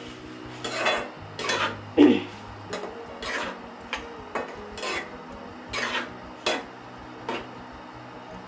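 Metal spatula scraping and stirring in an aluminium wok, about a dozen irregular strokes through a wet chicken-and-onion filling in milk, the loudest stroke about two seconds in.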